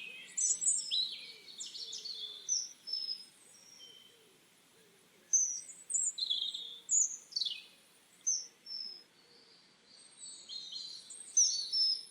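Wild songbirds singing and calling: a mix of short chirps, whistled notes and quick downward sweeps from several birds, with brief lulls between phrases.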